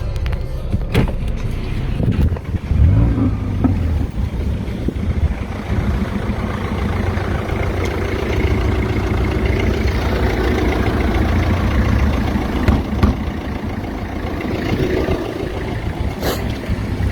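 Car engine running steadily, with a few sharp clicks along the way.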